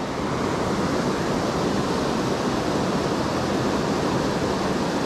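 Mountain trout stream rushing over rocks and a small cascade: a steady, even sound of running water.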